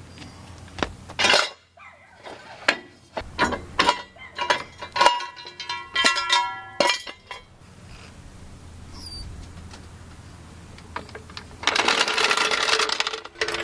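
Steel 3-ton jack stand being released and pulled out from under a vehicle: a run of metal clanks and knocks, some of them ringing on briefly. Near the end comes a louder, rough scraping noise.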